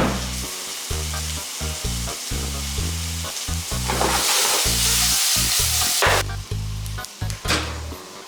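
Food sizzling as it fries in a pan. The sizzle swells about halfway through and cuts off suddenly, over background music with a steady bass beat.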